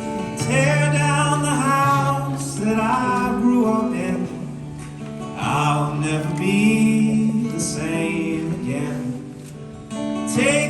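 A man singing a slow song over acoustic guitar chords.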